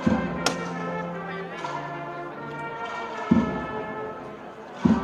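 Brass band playing a slow processional march, with held brass chords and a few heavy bass drum strokes.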